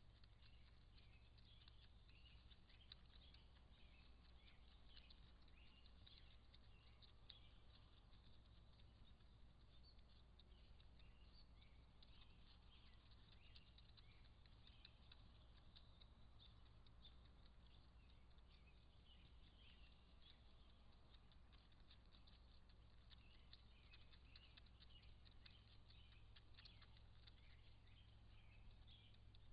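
Near silence: a low steady hum under a constant scatter of faint high ticks and chirps.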